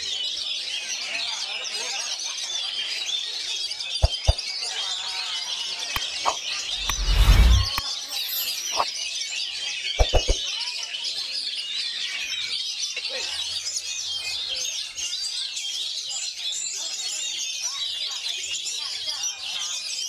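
Oriental magpie-robins (kacer) singing nonstop, a dense run of quick, varied warbling and chirps with no break. A few sharp clicks come about four and ten seconds in, and a brief low rumble comes near the middle.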